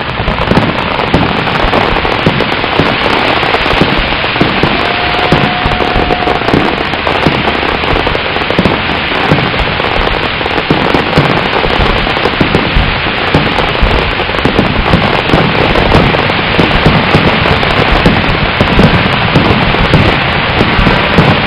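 Fireworks display: a dense, continuous crackling of many shells bursting at once, with low booms mixed through it and no pause.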